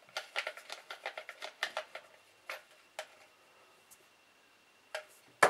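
Light, sharp clicks and taps of small plastic parts being handled, a quick irregular run of them in the first two seconds, then a few single clicks.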